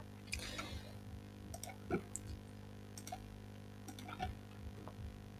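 Scattered soft computer mouse and keyboard clicks, a few to each second, over a low steady hum.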